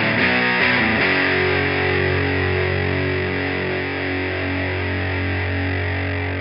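Heavily distorted electric guitar played through effects pedals: a few quick chords, then one chord held and left ringing for about five seconds.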